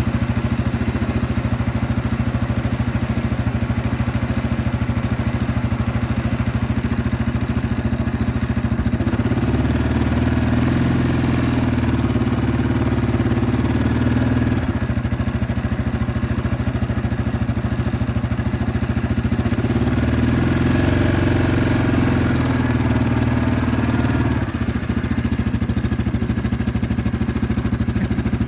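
Can-Am Outlander XMR 850 ATV's V-twin engine idling steadily. The revs pick up for about five seconds roughly ten seconds in, and again about twenty seconds in, then settle back to idle.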